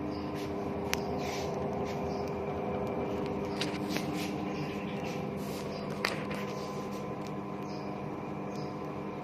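Toshiba washing machine running with a steady electric hum, and a few sharp clicks about a second in and about six seconds in.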